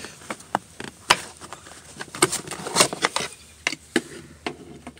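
Flathead screwdriver prying a plastic seat-track bolt cover off a 2000 Toyota Tundra floor: an irregular run of sharp clicks and scrapes as the plastic is levered loose, the loudest about two to three seconds in.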